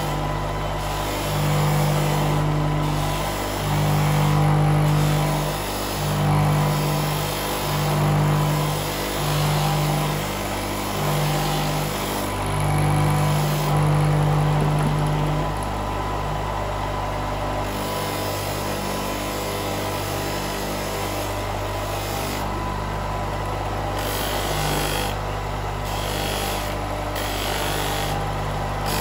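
Large electric polishing motor spinning a buffing wheel while an aluminium motorcycle footrest bracket, its anodizing stripped, is pressed against the wheel and polished. A steady motor hum with a strong low tone that swells and drops every second or two for about the first fifteen seconds, then runs evenly.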